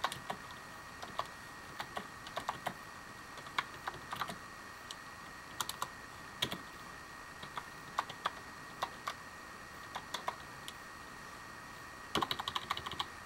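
Typing on a computer keyboard: keys clicking in irregular short clusters, with a quick run of keystrokes near the end, over a faint steady high-pitched hum.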